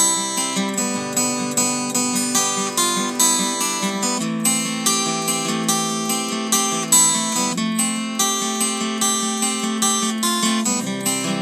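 Instrumental music played on a Taylor W14 acoustic guitar: picked and strummed chords with a steady pulse, the chord changing every few seconds.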